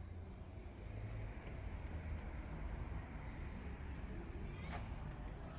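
Steady low rumble of vehicle noise, with a faint click near the end.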